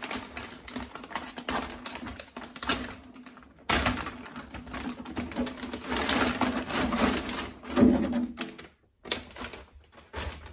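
Plastic packaging crinkling and rustling as a clear Lexan 1:10 crawler body is unwrapped and handled: an irregular crackle, with a sudden louder burst of crinkling about four seconds in.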